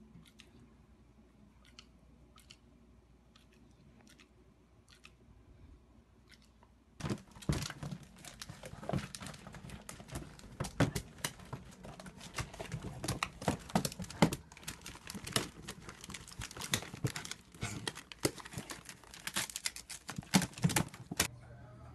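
Plastic bag and wrapping-paper rolls crinkling and crackling as a small dog burrows and shifts around inside the bag. It starts suddenly about seven seconds in, after a quiet stretch with a few faint clicks, and stops just before the end.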